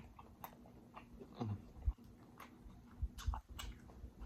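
A person chewing food close to the microphone, with scattered wet clicks and smacks of the mouth and a brief hum about one and a half seconds in.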